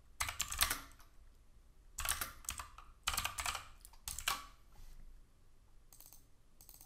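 Computer keyboard typing in short bursts of quick keystrokes with pauses between, four bursts and then a few fainter clicks near the end.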